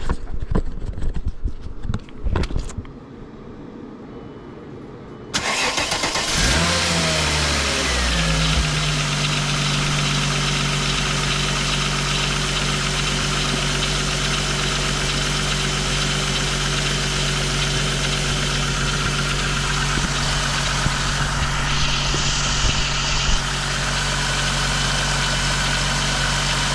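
2000 VW Eurovan's VR6 engine starting: after a few handling thumps, it cranks and catches about six seconds in, its pitch rising and wavering briefly, then settles into a steady idle. The engine is turning a newly fitted A/C compressor clutch and pulley bearing, and it runs nice and quiet, without the bearing noise.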